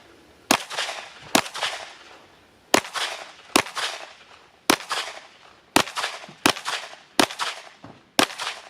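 Handgun shots fired one at a time during an IDPA stage: nine sharp reports at uneven spacing of roughly one shot a second, each with a brief echoing tail.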